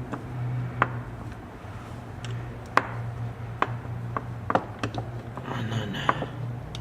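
Scattered light clicks and taps as the small metal housing and parts of a sewing machine motor are handled during reassembly, over a steady low hum.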